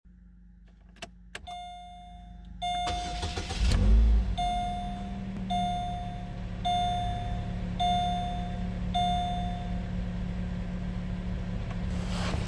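A 2004 Chevrolet Malibu's 2.2-litre four-cylinder engine is cranked and catches after about a second, then settles into a steady idle. Two light clicks come just before, and a dashboard warning chime sounds and then repeats about once a second, five times, once the engine is running.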